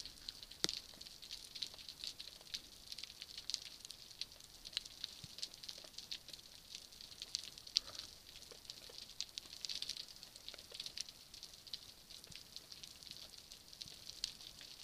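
Underwater reef crackle: a faint, continuous, irregular stream of tiny sharp clicks, the snapping of shrimp on the rocky seabed, heard through an action camera's housing.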